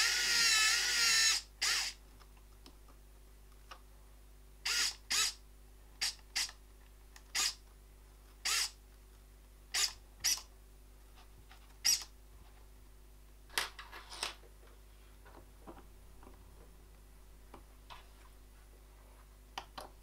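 Handling sounds of a circuit board being set and clamped in a small PCB vise. A wavering squeak of the sliding jaw lasts about a second and a half at the start, followed by a dozen short scrapes and clicks, the last ones about two thirds of the way in.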